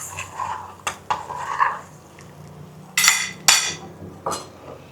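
Spoon stirring and scraping in a pan of jaggery-and-spice water on the stove, with a couple of sharp clinks about a second in and three louder, harsher scrapes against the pan from about three seconds on.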